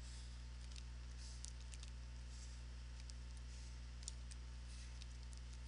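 Faint, scattered light clicks from drawing on a computer as lines are sketched, over a steady low electrical hum.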